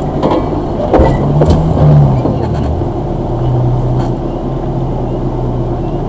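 Suzuki Jimny 4x4's engine running at low speed as it crawls along a forest dirt track. The engine pitch rises about a second and a half in, then settles. A few knocks come from the body and suspension early on.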